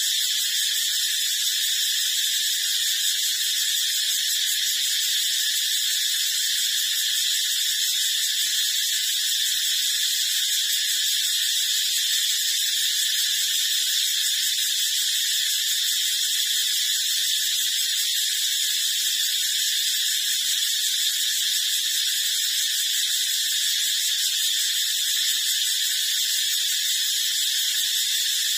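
A steady, high-pitched hissing drone that does not change.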